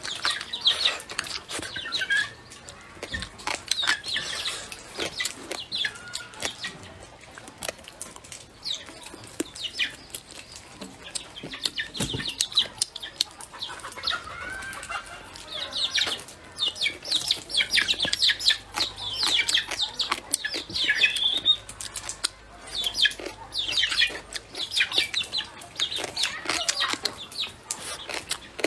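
Close-up eating sounds: chewing and lip-smacking on stir-fried duck, with clusters of wet, crunchy clicks coming again and again.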